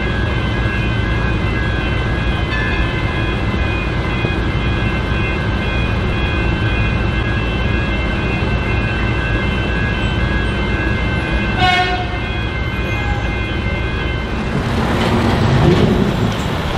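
Railway level crossing warning bells ringing steadily over street traffic. A short horn toot comes near the twelve-second mark, and a louder rumble swells near the end.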